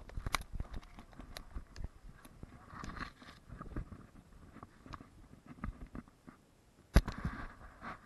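Handling noise from an action camera being carried: rustling, scraping and scattered small knocks against the microphone, with one sharp loud knock about seven seconds in as the camera is set down.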